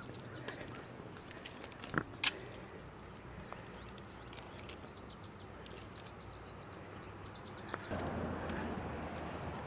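Quiet outdoor ambience with scattered high chirps and a rapid run of faint high ticks. Two sharp clicks come about two seconds in, and a louder rustling noise begins near eight seconds.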